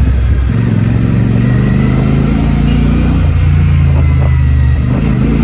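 Royal Enfield Shotgun 650's parallel-twin engine running while riding, a steady low exhaust note whose pitch changes about half a second in and again just past three seconds.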